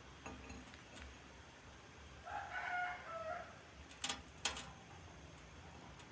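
A rooster crowing once, a call of just over a second, followed by two sharp knocks about half a second apart.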